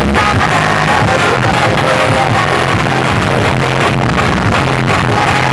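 Loud music with a strong, steady bass line, played through towering sound-system speaker stacks.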